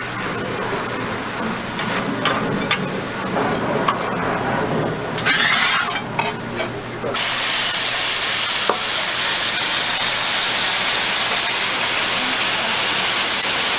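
Bacon-wrapped rolls frying on a flat-top griddle, with scattered clicks and knocks in the first half. About seven seconds in, a steady, loud sizzle starts suddenly and holds.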